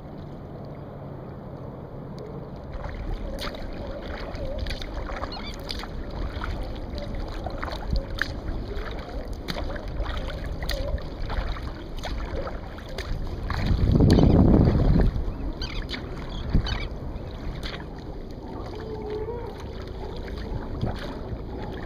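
Sea kayak being paddled on calm water: paddle strokes with water splashing and dripping, and small clicks against the hull over a steady low rush. About two-thirds of the way through comes a louder rush of about a second.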